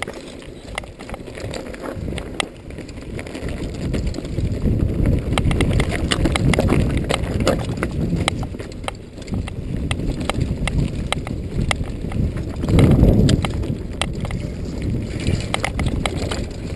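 A Norco Storm hardtail mountain bike riding down a rough dirt singletrack: its tyres rumble over the ground while the chain and frame give off rapid, irregular clicks and rattles. The rumble gets louder about three-quarters of the way through.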